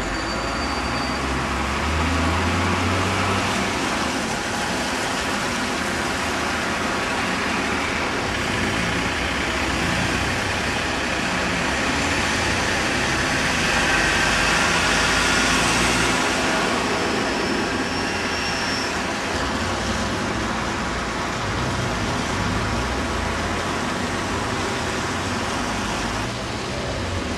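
Street traffic below: buses and cars passing, a steady mix of engine hum and tyre noise, rising as a vehicle passes close about halfway through.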